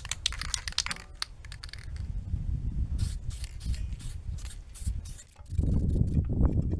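Paint being put on a hanging quad part: a series of short hissing strokes. About five seconds in, a steady low rumble takes over.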